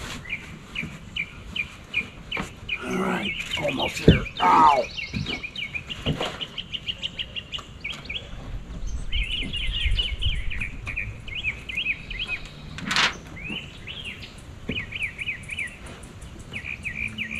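A songbird chirping over and over in quick short runs, with a few sharp knocks from work on the roof, the loudest about four seconds in and another near thirteen seconds.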